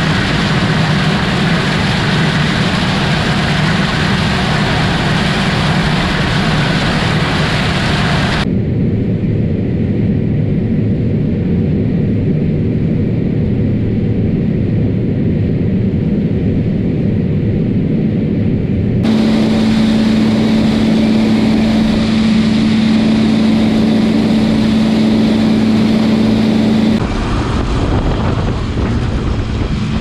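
John Deere combine running while harvesting dry corn: loud and bright at the header at first, muffled inside the cab from about a third of the way in, then a strong steady hum for several seconds, with wind on the microphone near the end.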